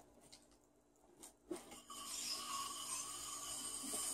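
Breath blown through a clarinet mouthpiece and reed, starting about two seconds in: a breathy hiss with only a faint thin tone in it, a beginner's first attempt at a sound, with the reed not yet speaking properly.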